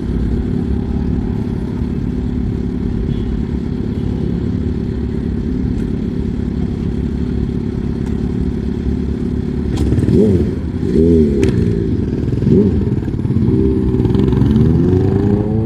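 A vehicle engine running steadily, then revving up and down several times in the last few seconds.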